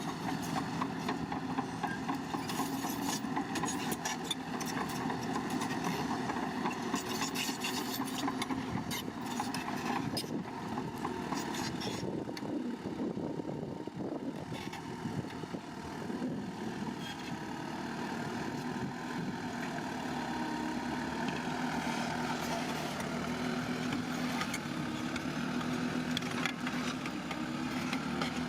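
Bulldozer's diesel engine running steadily under load while it pushes soil, with metallic clanks of the tracks and blade, and the engine note rising and falling a little.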